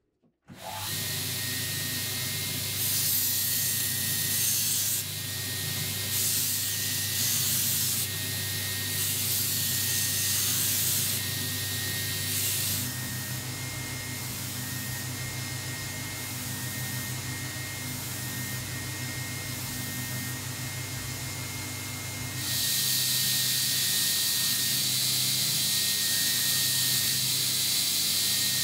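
Belt grinder running with a steady motor hum while a steel knife blade is ground against the abrasive belt. The grinding hiss comes in passes of a second or two, quieter for a stretch in the middle, then runs on continuously near the end.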